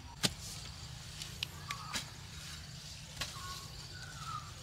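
Long-handled hoe striking the soil while sweet potatoes are dug up: a few sharp knocks, the loudest just after the start and the others spread over the next three seconds, over a steady low hum.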